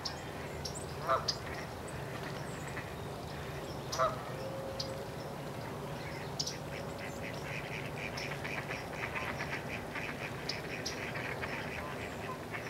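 Flock of waterfowl on a pond calling: single sharp calls about one and four seconds in, then a rapid chattering run of short high notes through the second half, over a low steady hum.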